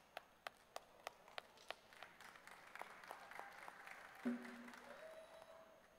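Audience applause, opening with a few evenly spaced claps and spreading into scattered clapping. About four seconds in, a percussion instrument is struck once and rings with a steady low tone, and a higher ringing note joins about a second later.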